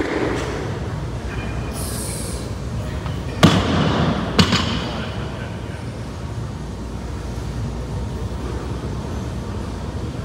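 Loaded barbell with bumper plates coming down onto wooden plyo boxes after a snatch: two heavy thuds with a ringing clank, about a second apart, over a steady background hum.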